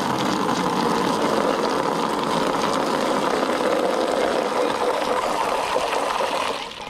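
Water from an outdoor standpipe spigot pouring steadily into a partly filled plastic tub, splashing into the water already in it. The flow stops just before the end.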